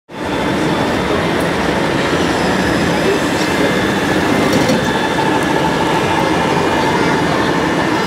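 Steady, dense rumbling hall noise with a faint steady tone, from radio-controlled scale trucks running in a busy exhibition hall.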